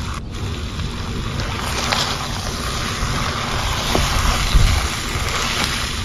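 Chicken macaroni sizzling in a hot nonstick frying pan, a steady hiss, with a spatula stirring and scraping through the pasta in the second half and a dull knock about four and a half seconds in.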